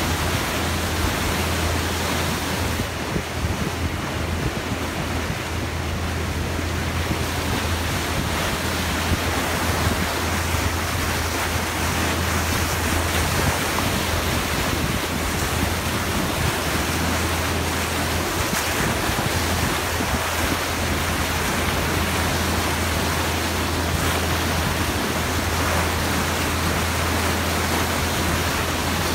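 Bow wave of a moving boat rushing and splashing along the hull, with wind on the microphone and a steady low hum underneath.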